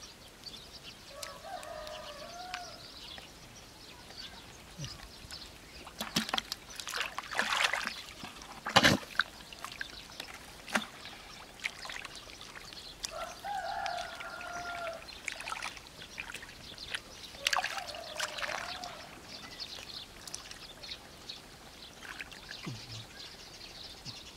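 Hands splashing and squelching through shallow muddy water, with water sloshing and dribbling and a sharp slap just before nine seconds in. Three brief calls sound in the background.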